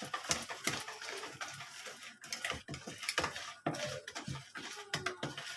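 Cake batter being mixed by hand in a bowl: a utensil works through the wet batter and knocks against the bowl in quick, irregular clinks.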